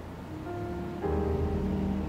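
Background music comes in: sustained instrumental notes at several pitches begin about half a second in and fill out into a fuller, louder chord about a second in, over a steady low hum.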